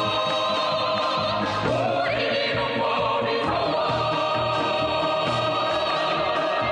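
Music with choral singing: held, vibrato-laden voices over instrumental accompaniment, moving to new notes every second or two.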